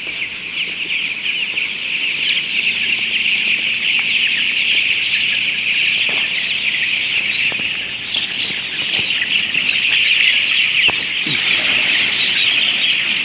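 A large flock of broiler chickens calling all at once: a dense, continuous high-pitched peeping and chirping from hundreds of birds.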